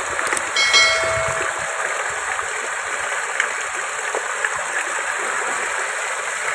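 Muddy rainwater rushing along a flooded narrow lane and pouring over a step in a steady rush. A short bell-like chime rings over it about half a second in, lasting about a second.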